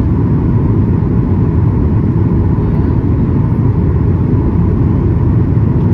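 Steady low rumble of a Boeing 737-800's cabin in flight, engine and airflow noise heard from a window seat, with a faint steady hum on top.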